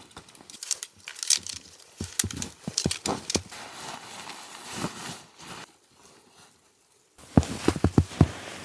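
Irregular knocks, clacks and rustles of camping gear being handled and packed up. There is a near-silent pause about six seconds in, then a quick run of louder knocks.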